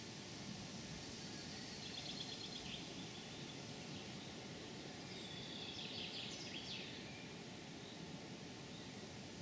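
A small songbird giving two short, rapid trilling phrases, one about two seconds in and a longer one about five seconds in, over a steady background hiss.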